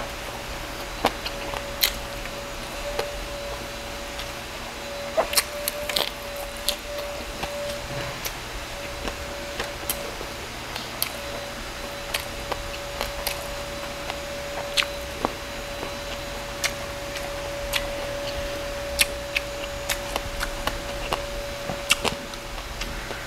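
Close-up chewing of crispy roast pork belly with the mouth closed: scattered sharp crunches and wet clicks at an uneven pace, over a faint steady hum.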